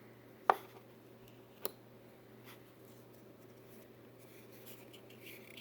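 Kershaw Brawler 1990X pocket knife being folded closed: a sharp click about half a second in, then a lighter click about a second later.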